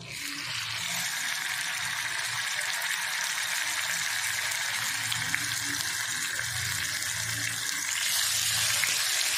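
Masala-marinated chicken pieces sizzling as they are laid into hot oil in a pan: a steady frying hiss that starts suddenly as the first piece goes in and grows louder about eight seconds in as another piece is added.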